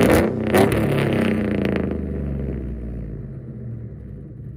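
A 2011 GMC Sierra's 5.3 V8, running long-tube headers with no catalytic converters into a Magnaflow muffler, gives two loud, sharp surges of exhaust in the first second. The deep note then settles and fades away.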